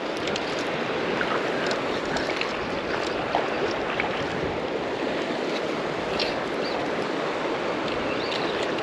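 Steady rushing of the South Platte River's current, with a few faint small ticks and splashes over it.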